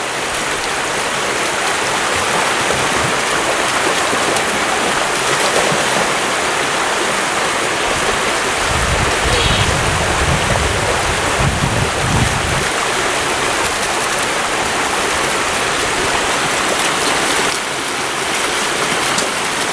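Shallow rocky stream rushing steadily, with a springer spaniel splashing as it wades through the water. A low rumble for about four seconds in the middle.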